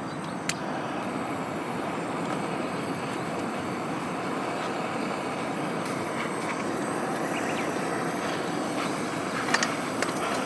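Steady rushing of a flowing river, with a few sharp crackles, one just after the start and a cluster near the end.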